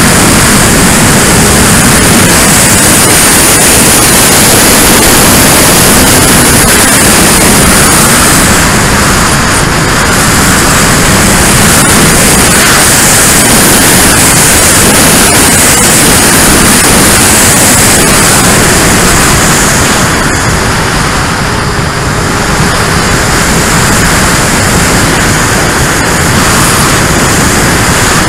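Freewing T-33 Shooting Star RC jet's electric ducted fan and the wind rushing over the airframe, recorded on board: a loud, steady rushing hiss. It eases slightly about ten seconds in and again around twenty-one seconds, as the throttle or flight path changes.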